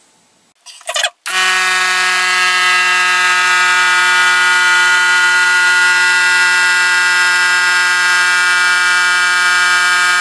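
Small electric air compressor switching on with a brief clunk, then its motor and pump running loudly as a steady, even-pitched buzzing drone while it pumps up the tank.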